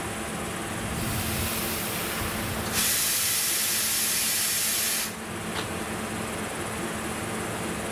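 Compressed air venting from a standing electric train: a hiss starts about a second in, swells to a loud full hiss near three seconds and cuts off suddenly at about five seconds, followed by a single click. A steady hum from the idling train runs underneath.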